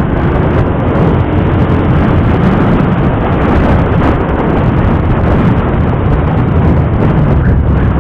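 Loud, steady rumble of wind on the microphone mixed with engine and road noise from a vehicle moving along the road.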